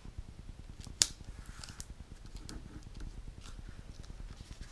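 Packaging tape being laid on a manila card folder and pressed down by hand: light rustles and small ticks of tape and paper, with one sharp click about a second in.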